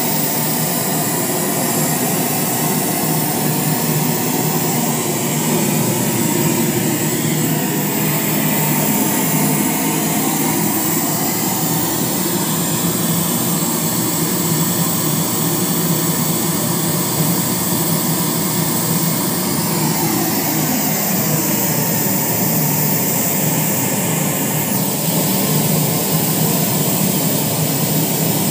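Loud, steady, hissing test noise played through newly built UAP speaker boxes during a response check. A couple of faint falling tones glide down past the middle.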